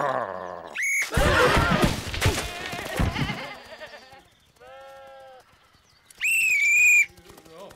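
Cartoon sheep bleating in a loud, noisy jumble for about two seconds. A single bleat follows, then a loud, shrill whistle blast near the end.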